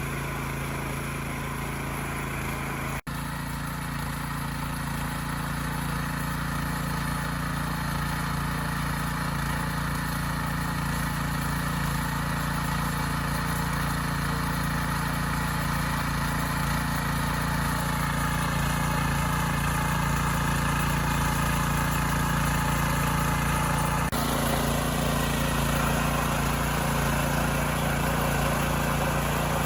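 Oka walk-behind tractor with a Chinese-made engine running steadily while its rotary cutters till the soil. The sound cuts out for an instant about three seconds in.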